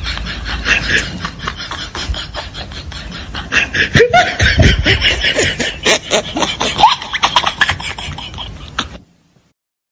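A rhythmic clicking beat with laughing voices over it, cutting off abruptly about nine seconds in.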